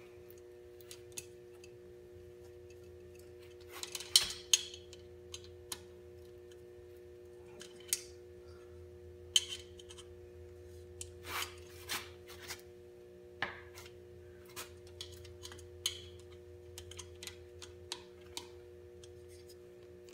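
Hand tool working the hose clamps on a motocross bike's radiator hoses as they are tightened: scattered metallic clicks and short scrapes, the loudest cluster about four seconds in.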